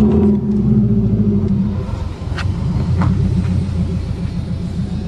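Subaru Legacy's boxer engine revving high and holding its revs under full throttle during a hard launch meant to spin the wheels, with a few sharp ticks a couple of seconds in.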